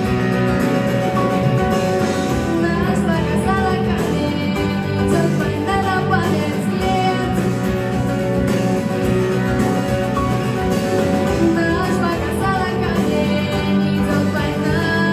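Instrumental break of a song: a melodic lead line in two phrases over a steady accompaniment with guitar.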